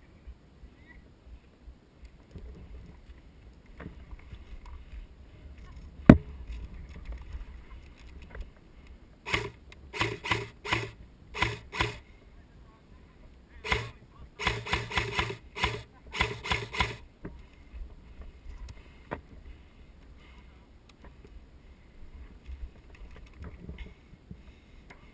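Airsoft guns firing in two clusters of short repeated bursts, about nine and fourteen seconds in, after a single sharp crack about six seconds in.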